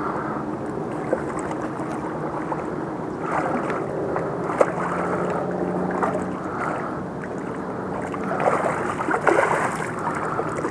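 Steady low motor rumble over moving water, with scattered knocks and splashes that get louder near the end.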